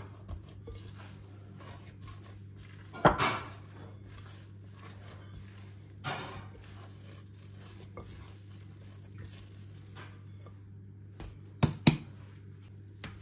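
Kitchen handling sounds of bowls and utensils: a loud knock about three seconds in, a softer one a few seconds later, and two sharp knocks close together near the end, over a steady low hum.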